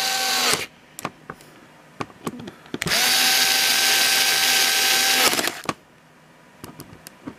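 Small handheld electric screwdriver, set to its lowest torque, driving screws into an aluminium airsoft gearbox shell: a steady motor whine that stops about half a second in, a few light clicks, then a second run of about two and a half seconds that stops again.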